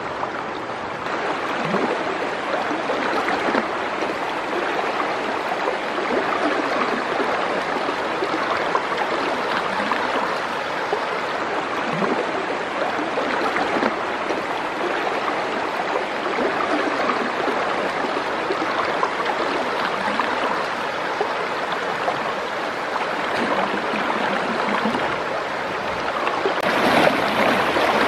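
Fast, muddy river water rushing steadily over rapids, with a continuous churning splash. It gets louder near the end as a person wades through the current.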